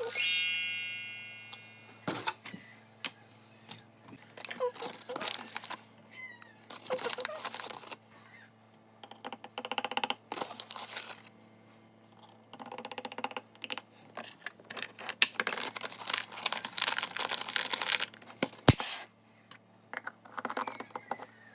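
Making up a baby's bottle of milk: irregular clicks, rustles, scrapes and clinks of containers and a bottle being handled. It opens with a bright ringing ding that fades over about two seconds.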